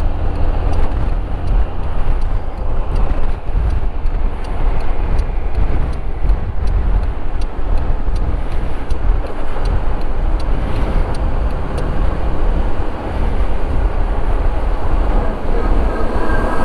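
A motorcycle riding through city traffic, heard from a camera mounted on the rider: heavy wind rumble on the microphone over engine and road noise. A faint regular ticking runs underneath, about twice a second.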